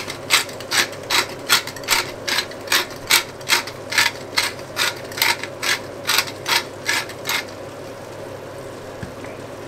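Hand-twisted pepper mill grinding, a regular ratcheting crunch about two and a half times a second that stops about seven seconds in.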